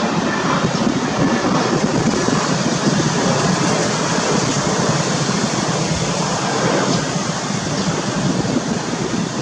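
Boeing 787-8 jet's two turbofan engines at taxi power, a steady rushing noise as the aircraft rolls past.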